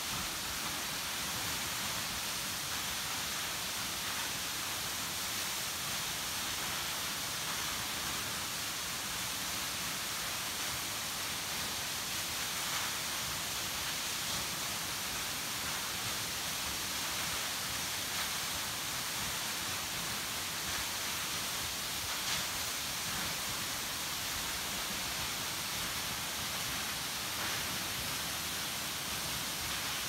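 Steady rush of a tall waterfall plunging onto rocks and into a shallow pool: an even hiss of falling water, with a slightly louder splash standing out now and then.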